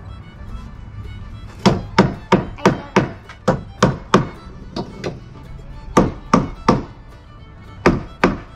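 Claw hammer driving nails into a wooden frame: a run of about ten quick blows at roughly three a second, a short pause, four more blows, then two more near the end.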